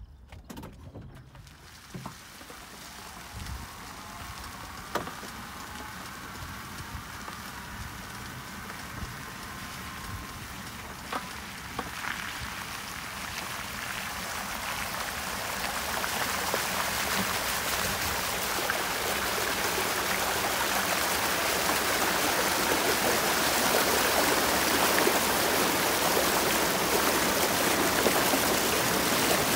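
Tyres of a Renault Kangoo Z.E. electric van rolling over a dirt track with scattered crunches, then churning through flood water. The water spray off the front wheel grows steadily louder into a continuous rushing splash as the van drives deeper. A faint rising whine runs through the first half.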